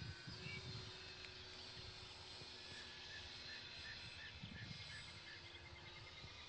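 Faint, steady drone of an electric RC model Cessna Skymaster's push-pull motors flying overhead, with wind buffeting the microphone. In the middle comes a run of about eight short high chirps, roughly three a second.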